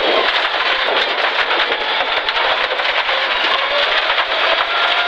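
Rally car at full speed on a loose gravel road, heard from inside the cabin: the engine runs hard under a loud, constant crackle of stones and grit pelting the underbody and wheel arches.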